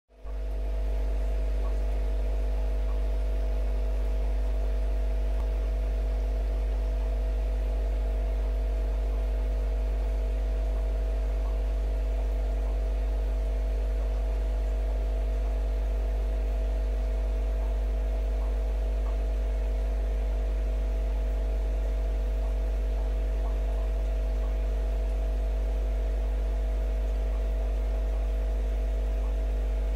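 Steady electrical hum: a deep, unchanging drone with a few higher steady tones over it and a faint hiss.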